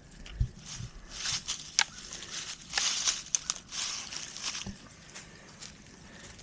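Irregular rustling and crunching, like movement through dry leaves and brush, with a few sharp clicks, the sharpest about two seconds in; it dies down after about five seconds.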